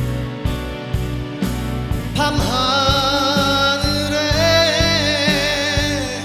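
Pop ballad band accompaniment with a steady drum beat; about two seconds in, a male voice enters and holds one long sung note with vibrato, which ends just before the end.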